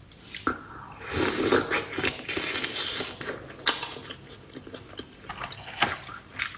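Close-up mouth sounds of biting into a block of raw tuna sashimi dipped in soy sauce and chewing it: a wet tearing bite about a second in, then chewing with a few sharp smacks.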